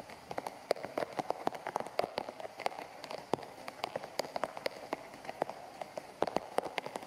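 Rain falling on wet tiled paving: a steady patter of many irregular drop hits.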